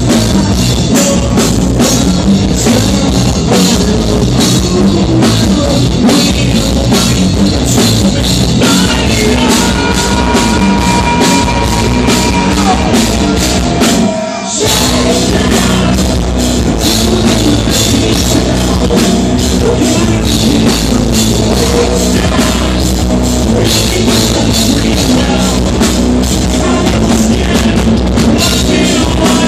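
Live rock band playing loud, with distorted guitars, bass and a drum kit. The band breaks off for a split second about halfway through, then comes back in.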